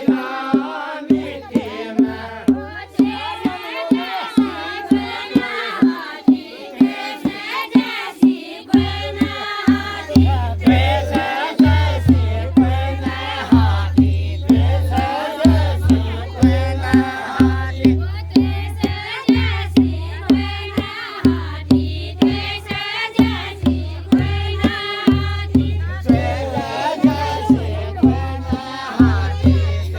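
Group of voices singing a Pahari chanchari folk song over a steady drum beat of about three strokes every two seconds.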